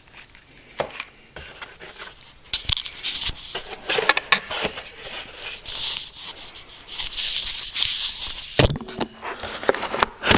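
Cardboard and plastic packaging being handled: irregular rustling and scraping with light knocks and clicks, busiest in the middle, as the small power-cord box is pulled out and opened.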